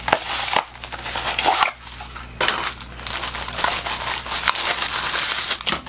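Cardboard box packaging of a flat iron being opened and handled: irregular crinkling and rustling, with a short lull about two seconds in.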